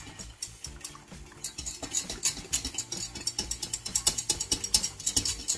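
Wire whisk beating a thick milk-and-flour roux in a small stainless steel saucepan, its wires clicking against the pan in a quick even rhythm of about five strokes a second. The clicks get louder from about a second and a half in.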